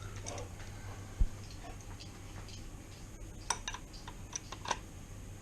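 Scattered light clicks and clinks of parts or tools being handled in a workshop, a cluster of them near the end, with one sharp low thump about a second in, over a steady low hum.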